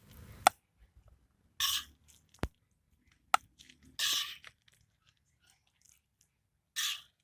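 A metal spoon scraping cooked noodles out of a pan into another dish: four short scrapes with three sharp clinks of the utensil against the pan between them.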